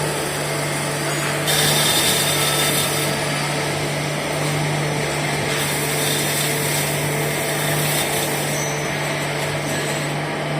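CNC lathe running, with a steady spindle hum under the hiss of a tool cutting nylon bushing stock; the cutting hiss gets louder for about a second and a half near the start.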